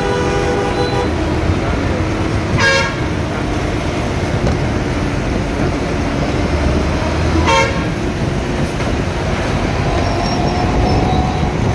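Steady road traffic and truck noise, with two short vehicle horn toots: one about two and a half seconds in and another about five seconds later.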